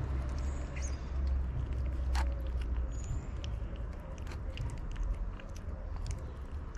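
Tabby cat eating wet cat food: quick wet chewing and lip-smacking clicks, over a low steady rumble.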